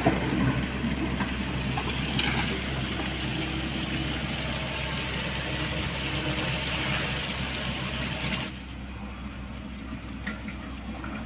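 Diesel heavy construction machinery working: a steady engine hum under a loud rushing, grinding noise that cuts off abruptly about eight and a half seconds in, leaving a quieter engine hum.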